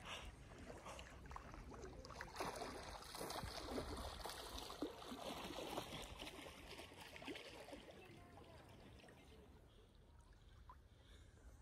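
Lake water lapping and making small splashes right at the microphone, an irregular patter of little wet ticks that grows fainter in the second half.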